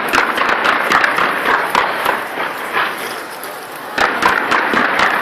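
Fireworks going off in rapid, irregular bangs and crackles over a crowd's loud cheering and chatter.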